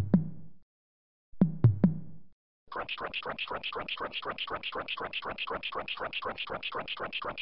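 Cartoon sound effects: two booming thuds about a second and a half apart, each a sharp crack trailing into a low rumble that dies away, then a fast rasping sound repeating about seven times a second.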